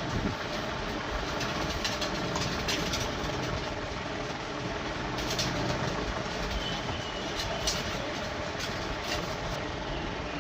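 Steady background noise of a working motorcycle workshop, with scattered light clicks and knocks from parts being handled.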